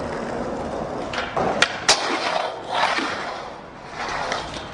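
Skateboard wheels rolling on a hard surface, with two sharp clacks of the board about a second and a half to two seconds in, then more rolling.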